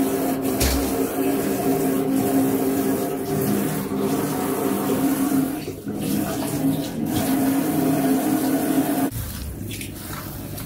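A steady hum with several fixed tones and a few light clicks. About nine seconds in it changes suddenly to a kitchen tap running water over razor clams in a plastic colander.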